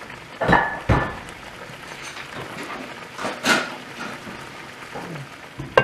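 Water and wine sizzling and simmering in a hot cast-iron skillet of roast and vegetables, deglazing the pan. A few sharp knocks over the sizzle, the first ones with a short metallic ring.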